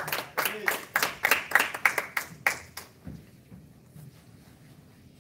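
Small audience applauding, quick close hand claps that die away about three seconds in.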